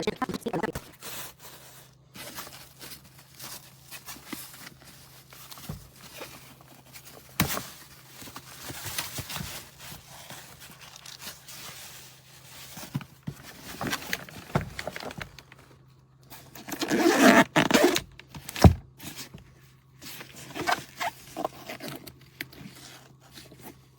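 Zipper on a hardside carry-on suitcase being worked and catching, with scrapes, rustles and knocks as the case is handled; a louder rasping stretch comes about seventeen seconds in. The zipper snags and has split.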